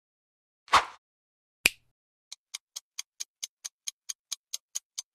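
Quiz sound effects. A swoosh about a second in is followed by a short click. Then a countdown timer ticks like a clock, evenly, about four and a half ticks a second.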